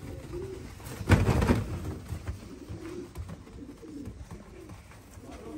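Rostov pigeons cooing over and over, the display coo of a male strutting with his tail fanned. About a second in, a brief loud rustling burst stands out above the cooing.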